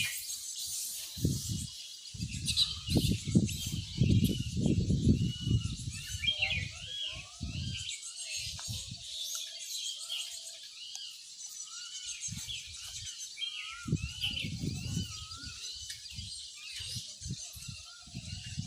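Birds chirping over and over in short, quick calls, with low rumbling noise coming and going in bursts, strongest in the first eight seconds.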